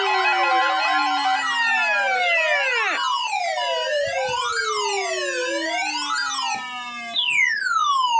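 Several electronic sirens sounding over one another: quick up-and-down wails at first, then falling sweeps and slower wails, with a steady broken tone running under them. After a brief dip in level about seven seconds in, a new high tone starts and slides steadily down.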